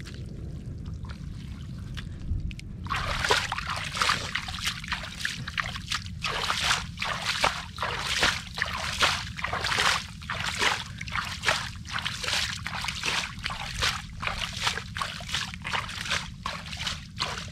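Muddy water splashing as it is scooped by cupped hands and flung out of a shallow puddle, one splash after another about twice a second from about three seconds in.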